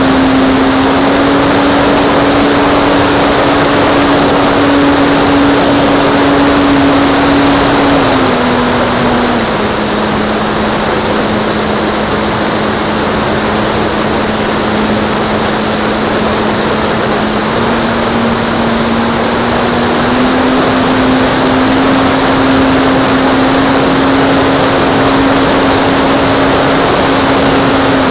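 RC model airplane's motor and propeller running steadily over a rush of noise. It is throttled back a little about a third of the way in and brought back up in two steps about two-thirds of the way through.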